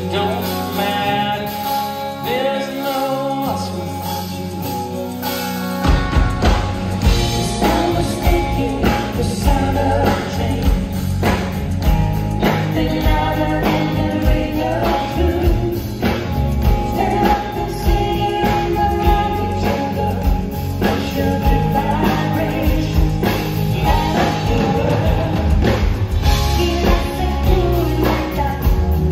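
Live band playing a soft-rock song with piano, electric guitar and singing. About six seconds in the full band comes in, louder and with a heavy low end and a steady beat.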